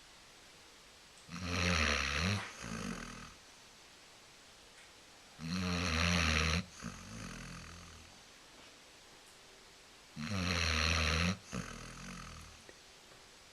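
Basset hound snoring: three loud snores, about four and a half seconds apart, each trailing off into a softer sound.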